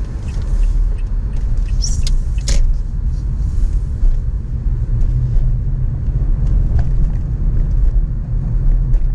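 Car driving, heard from inside the cabin: a steady low rumble of engine and tyres that grows a little louder in the first second as the car pulls away from a stop, with a couple of sharp clicks about two seconds in.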